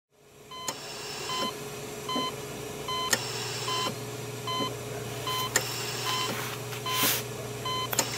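Patient monitor beeping at a steady, heartbeat-like pace of about one short beep every 0.7 seconds, all at one pitch, over a steady electrical hum. There are scattered clicks and a brief hiss about seven seconds in.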